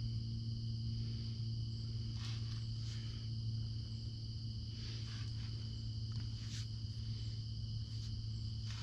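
Steady, high-pitched insect chorus in the woods, with a low steady hum beneath and a few faint clicks.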